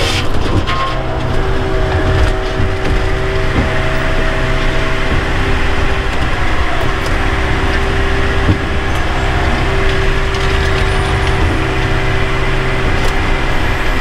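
Bells 4000 firewood processor's engine and hydraulics running steadily, heard from inside the operator's cab: a constant low drone with a steady whine over it.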